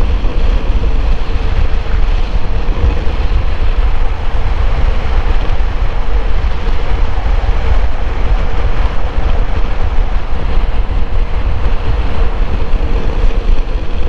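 Wind rushing and buffeting over the microphone on a moving Suzuki Bandit motorcycle, with the bike's engine and road noise steady underneath.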